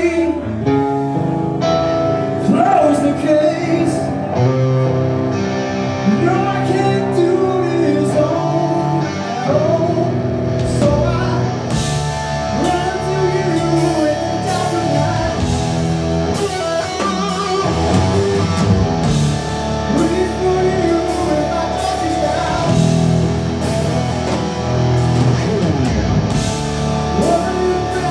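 Live blues-rock song: a man singing over electric guitar, with a steady beat joining about twelve seconds in.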